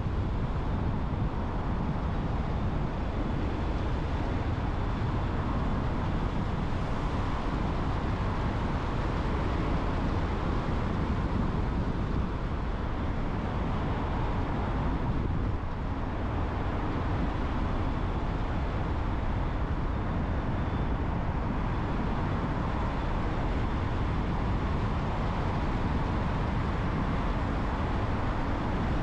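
A car driving steadily along a road: continuous low rumble of engine and tyres on the road surface.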